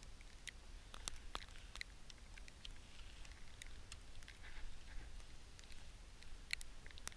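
Footsteps crunching through thin snow and dry grass, with scattered small clicks and rustles from clothing and gear.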